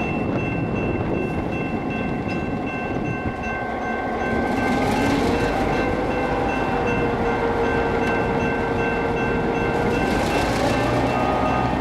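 Diesel locomotive running with a steady whine. About four seconds in its engine note rises and grows louder, then holds.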